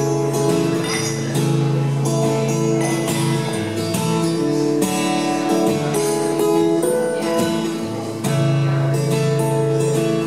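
Cutaway acoustic guitar strummed and picked through a song's instrumental intro, its chords ringing and changing every second or two.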